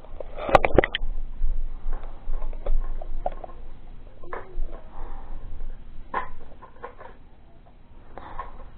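Scattered clicks, taps and knocks of metal detector parts being handled and fitted together, with a quick cluster of sharp clicks about half a second to a second in.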